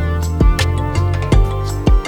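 Background music with a steady beat: plucked-string instrumental with a regular drum pulse about twice a second.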